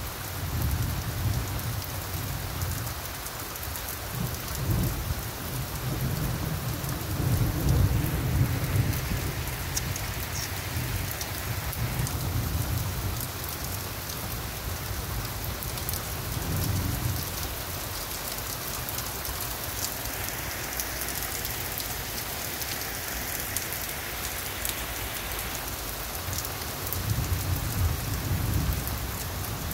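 Steady rain falling in a thunderstorm, with thunder rolling several times: a long low roll over the first nine seconds, loudest about eight seconds in, a shorter rumble past the middle and another near the end.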